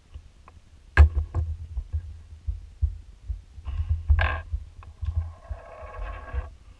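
A sharp knock about a second in as a digital caliper is set down on a desk, then low thumps and light clicks from a hand working a laptop touchpad.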